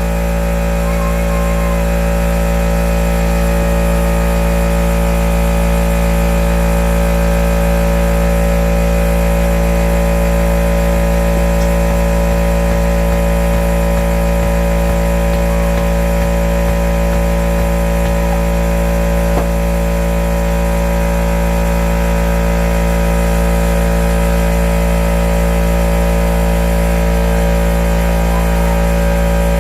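A motor or engine running steadily, giving an even low drone with several steady tones that do not change.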